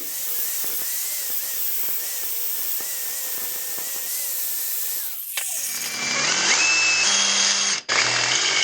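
Power grinder grinding down weld beads on steel. The motor runs steadily and winds down about five seconds in. Louder grinding then starts again, with a brief break near the end.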